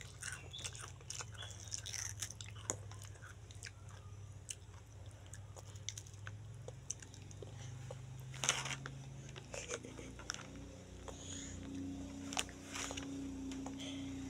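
A toddler biting and chewing a crunchy snack: scattered small crunches and mouth clicks, thickest in the first few seconds, with two louder crackles, one past the middle and one near the end. A steady low hum runs underneath, joined by a higher hum about ten seconds in.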